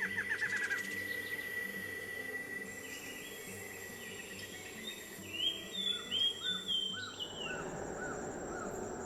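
Forest birds calling over a steady high insect buzz. A quick run of falling chirps comes at the start, then bright rising-and-falling whistles and a series of short repeated calls in the second half.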